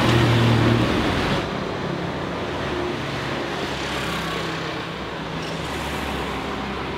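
Street traffic noise: a vehicle engine runs close and loud for about the first second and a half, then the sound drops to a steadier, quieter traffic hum.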